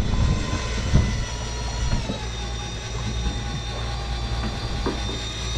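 Fishing boat's engine running steadily, its hum dropping slightly in pitch about two seconds in, with a couple of faint knocks.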